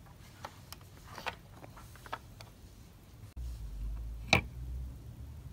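Light clicks and taps of toy trains and a toy crane being handled on wooden track. Then a low steady hum comes in suddenly, with one sharp click about four seconds in.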